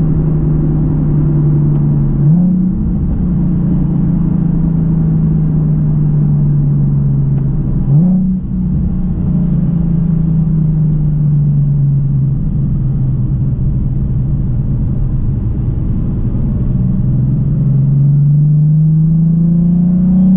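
Nissan 370Z Nismo's 3.7-litre V6 through an AAM Resonated Short Tails axle-back exhaust, heard from inside the cabin while driving. The engine note sinks slowly, jumps sharply up in pitch twice (about two and eight seconds in), and climbs steadily near the end as the revs rise.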